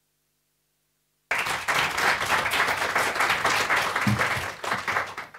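A small audience applauding, starting suddenly about a second in and dying away near the end.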